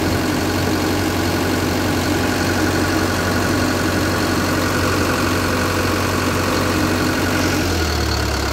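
Komatsu SAA4D107E-1 four-cylinder turbo-diesel engine of a Komatsu PW140-7 wheeled excavator idling steadily, heard close up in the open engine bay. Its low drone shifts slightly near the end.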